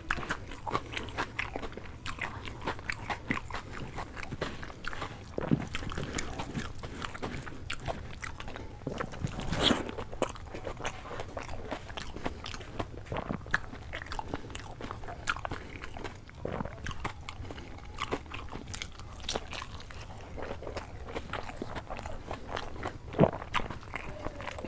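Close-miked eating: chewing and crunching mouthfuls of rice and curry eaten by hand, a dense run of irregular wet mouth clicks with a few louder crunches.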